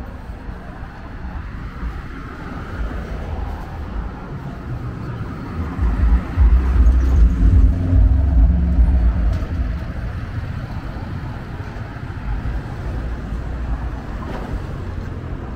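Street traffic with a motor vehicle passing close by. Its low engine rumble swells about six seconds in and fades after about nine seconds.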